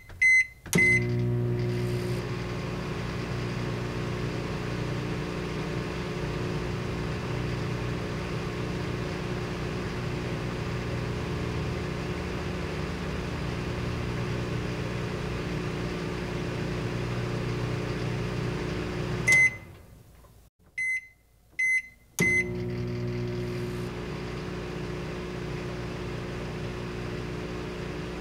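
Microwave oven: a few keypad beeps, then the oven running with a steady hum. About nineteen seconds in, it stops with a beep. After a few more keypad beeps it starts running again, humming on.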